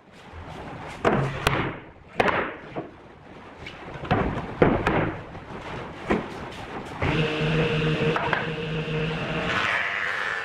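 Old wooden boards knocked and set down on a wooden workbench: a series of sharp wooden knocks. From about seven seconds a table saw's motor runs with a steady hum, shifting to a higher tone near the end.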